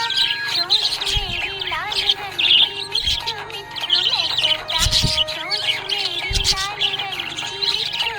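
Budgerigars chirping and warbling: many quick, overlapping rising and falling chirps, with steady held tones underneath.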